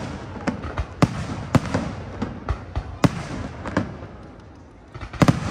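Fireworks display: aerial shells launching and bursting in an irregular string of sharp bangs about every half second, each with an echoing tail. After a short lull there is a close cluster of the loudest bangs near the end.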